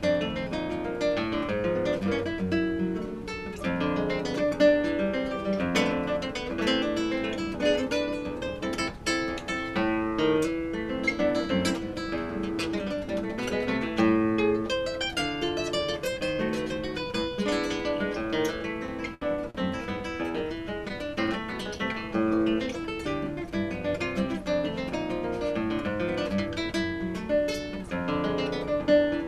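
Solo nylon-string classical guitar played fingerstyle in a classical Latin American piece, with dense runs of plucked notes and chords. The sound drops briefly a little past the middle.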